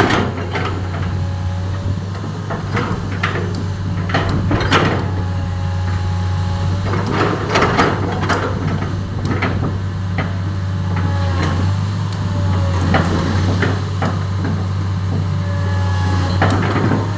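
Komatsu PC10-8 mini excavator's diesel engine running steadily, now working after a new engine controller cured its no-start. Scattered clanks and knocks sound over the engine.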